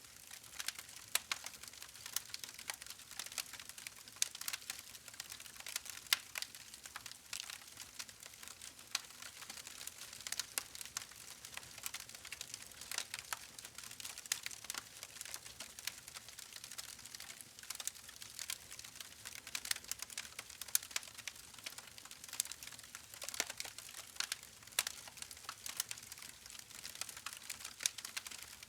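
Campfire burning with a steady, irregular crackle of many small pops and snaps from the wood over a soft hiss.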